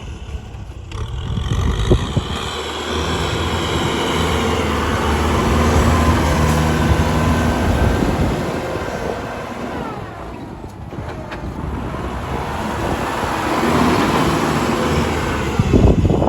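Kubota L4018SP tractor's diesel engine working under load, getting louder, easing off about two-thirds of the way through, then building again. A couple of sharp knocks come through, one early and one at the very end.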